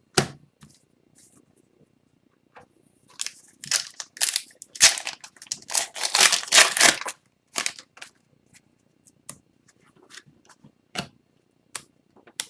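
Wrapper of an Upper Deck hockey card pack being torn open and crinkled: a run of rustling tears from about three seconds in, loudest near the middle, then scattered light taps and slides of cards being handled.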